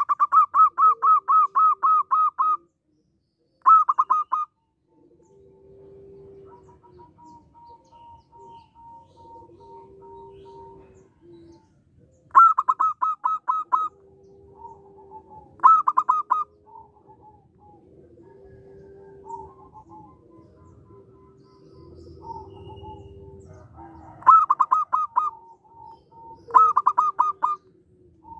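Zebra dove (perkutut) singing in repeated bursts of quick staccato coos, about four or five notes a second; the first burst lasts about two and a half seconds and five shorter ones follow. Fainter, lower drawn-out coos fill the gaps between bursts.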